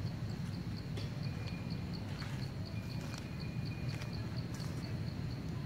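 An insect chirping steadily in high, even pulses, about four or five a second, over a low steady rumble, with a few faint clicks.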